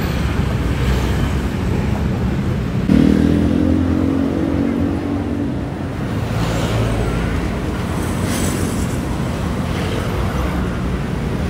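Busy road traffic passing close by: a steady rumble of cars and motorcycles. One vehicle's engine comes up loud about three seconds in and fades over the next few seconds.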